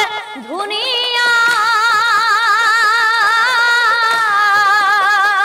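A woman's voice singing nagara naam: a short rising phrase, then from about a second in one long held note with a steady vibrato.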